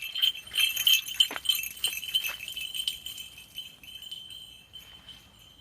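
A small bell jingling rapidly and unevenly, as if shaken with each step, growing fainter toward the end. A few light clicks sound in the middle.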